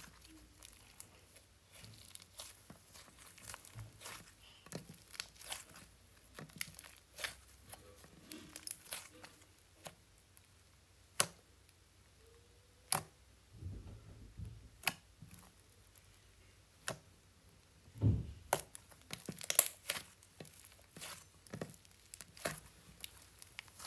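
Soft slime being squeezed, poked and kneaded by hand, giving irregular sticky clicks and pops, with a louder run of pops about three quarters of the way through.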